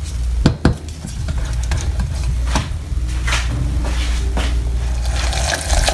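Silicone spatula stirring and scraping thick barbecue sauce in a stainless steel pot, with a soft sizzle from the simmering sauce and a few sharp taps of the spatula against the pot, over a steady low hum.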